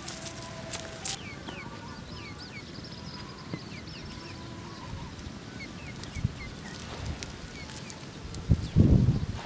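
A domestic hen calling with a drawn-out call in the first second, over many quick falling chirps of small birds. Near the end comes a louder, low burst of sound.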